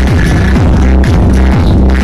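Electronic dance music played loud through a homemade subwoofer set pushed into a wall corner, the wall boosting its bass. Deep, steady bass with repeated falling bass sweeps.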